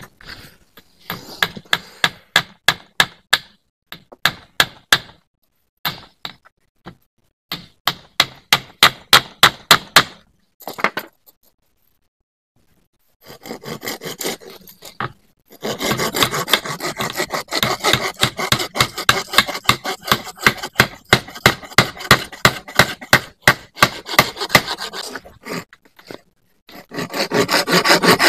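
Quick, rhythmic scraping strokes on wood, as when wood is worked by hand with a blade or saw. They come in short runs at first, then in a long, steady run from about halfway through, with a brief pause near the end.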